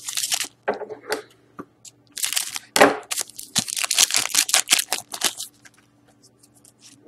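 Foil wrapper of a 2013-14 Panini Titanium hockey card pack crinkling and tearing open by hand. Quick sharp rustles come in two bunches, a short one at the start and a longer, denser one in the middle, then fade to a few light ticks as the cards come out.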